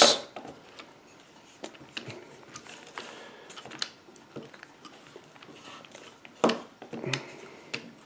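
A power drill driving a chainsaw attachment winds down and stops right at the start. After that come scattered light clicks and knocks as the plastic attachment is handled, the loudest a little after six and a half seconds and just after seven seconds in.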